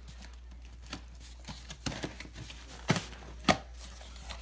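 Hands handling a cardboard shipping box: light rubbing and scraping with a few sharp knocks, the two loudest about three and three and a half seconds in.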